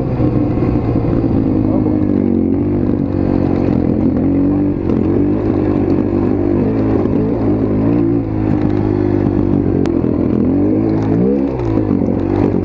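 Motorcycle engine running under way, its pitch rising and falling as the throttle is worked, with a quick rev up and back down near the end.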